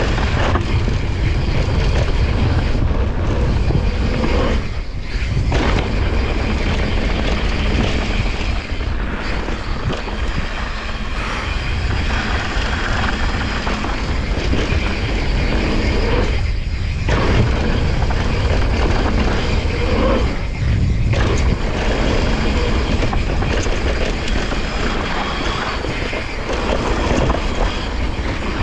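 Wind rushing over an action camera's microphone, along with the tyres and frame of a Santa Cruz Nomad mountain bike rolling fast over a dry dirt trail. The noise is steady and loud and eases briefly three times.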